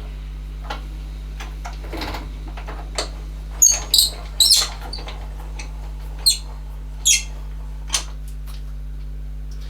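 Lathe parts and tools handled by hand: scattered short metallic clicks and a string of brief high squeaks, mostly in the middle, over a steady low hum.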